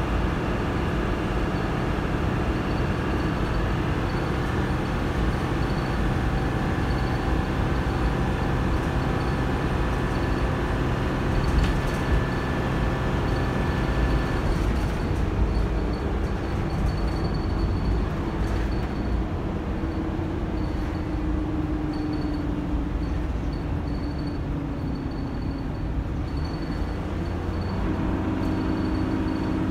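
Dennis Dart SLF bus with an Allison AT545 automatic gearbox heard from inside the saloon, its diesel engine driven hard with a steady drone. The note drops away about halfway through, a tone falls slowly over the next several seconds, and the engine picks up again near the end.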